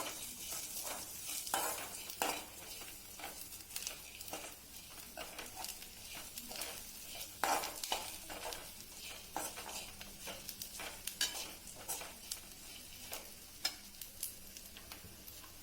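Food sizzling in hot oil in a pan while a spoon stirs it, scraping and tapping against the pan several times a second at an uneven pace.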